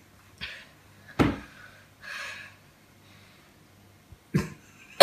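A boy coughing after eating a very hot chilli: a sharp cough about a second in, the loudest sound, a breathy exhale after it, and another short cough near the end.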